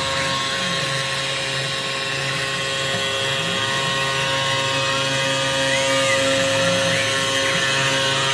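Desktop 5-axis CNC milling machine running: a steady high spindle whine, with the axis drive motors' whine repeatedly rising and falling in pitch as the axes speed up and slow down.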